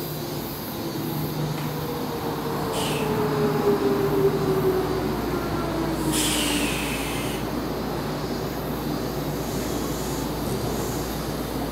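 Odakyu 1000-series electric train pulling in and braking to a stop: the traction motor whine falls steadily in pitch as it slows, over the rumble of the wheels, with two short high brake squeals about three and six seconds in.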